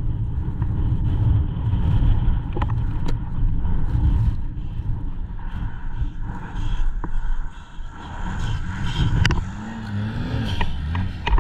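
Snowmobile engine running, buried under heavy wind rumble on the microphone, with a few sharp knocks.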